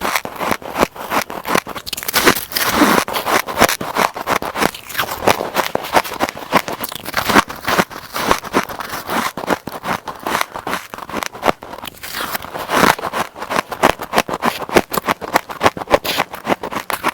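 White ice being chewed: a dense, continuous run of crisp cracks and crunches, with louder bites now and then.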